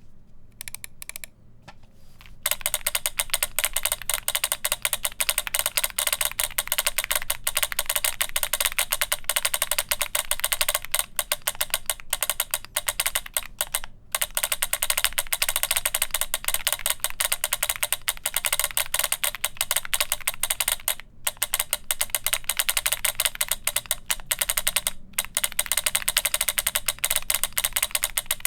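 Keys on a mechanical keyboard with lubed Cherry MX Black linear switches, a polycarbonate plate and PBT keycaps, pressed in a fast, dense stream of clacks. A few scattered key presses come first, and the rapid pressing begins about two and a half seconds in, broken by a few short pauses.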